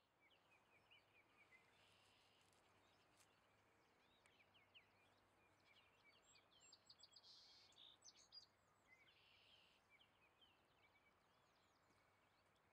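Faint birdsong: many short chirps and whistles from several small birds, busiest about two-thirds of the way through, over a low steady hiss.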